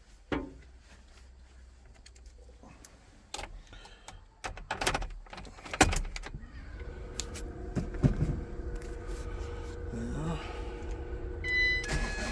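Clicks and knocks of handling in the van's cab. About six seconds in, the Ford Connect van's engine starts and runs steadily, with a short electronic beep near the end.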